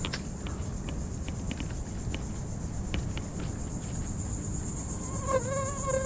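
Steady, high-pitched chorus of insects in the creekside vegetation, with scattered faint clicks over a low background rumble. A brief wavering tone comes in near the end.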